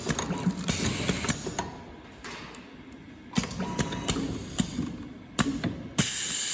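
Semi-automatic USB cable soldering machine working through its cycle: a string of sharp mechanical clicks and clacks, with several hissing bursts. The loudest hiss comes near the end and stops abruptly.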